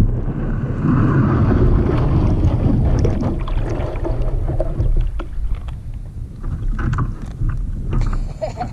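Kayak on the water: water sloshing and splashing around the hull, over a heavy low rumble of wind buffeting the GoPro's microphone, with scattered short knocks in the second half.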